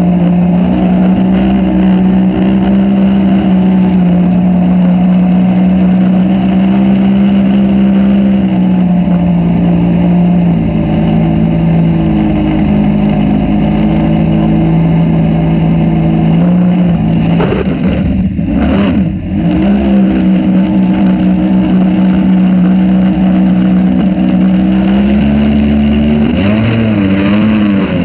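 Outboard jet-drive motor on a jon boat running steadily underway. Its pitch drops a step about ten seconds in, breaks up briefly around eighteen seconds, then returns to a higher steady pitch and wavers near the end as the throttle changes.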